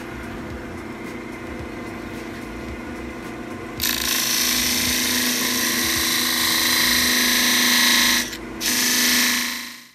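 Jet wood lathe's motor running with a homemade plywood disc sander spinning on it. About four seconds in, a piece of wood is pressed against the sanding disc, giving a loud steady sanding hiss over the motor hum. The hiss breaks off briefly near the end, then resumes before fading out.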